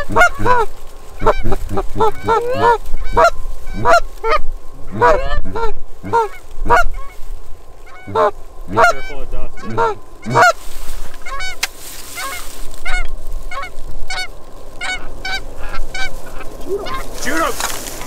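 Canada goose honks and clucks in quick succession, loud and dense for about the first ten seconds, then fainter and more spaced out.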